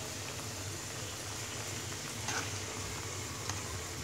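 Hilsa and red amaranth curry simmering in a karahi: a steady bubbling hiss with a couple of small pops.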